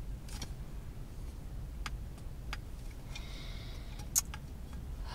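A few scattered sharp clicks, the loudest about four seconds in, with a short hiss just before it, over a steady low rumble.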